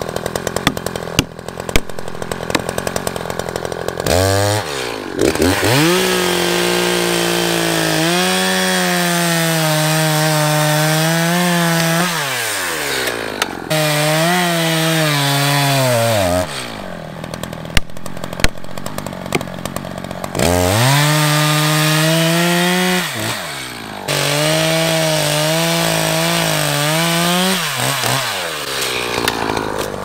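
Echo Timberwolf 59cc two-stroke chainsaw bucking a felled pine log. It idles with a ticking, then revs to full throttle for several cuts of a few seconds each, dropping back to idle between them. Its pitch sags as the chain bites into the wood.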